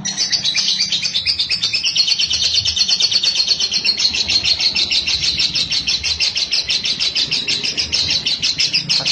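Fischer's lovebird singing a long, unbroken 'ngekek' chatter: rapid repeated high notes, about ten a second, starting abruptly.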